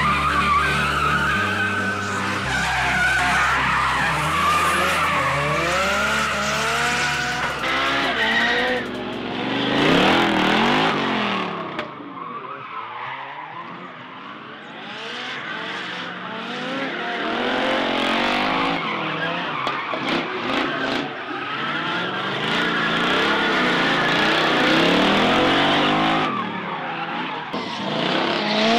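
Drift cars sliding with engines revving hard up and down, the pitch sweeping repeatedly, over tyres squealing and skidding. The engines drop away for a few seconds about halfway through, then come back up.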